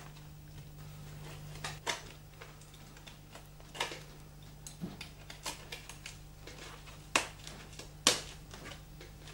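Irregular light clicks and taps from a scalpel and fingers working the rubber edge trim off a crash helmet's shell, a few of them sharper, over a faint steady low hum.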